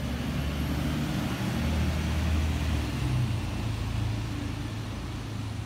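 A city bus passing close by, its engine a low steady drone over road noise, growing louder a couple of seconds in and fading near the end.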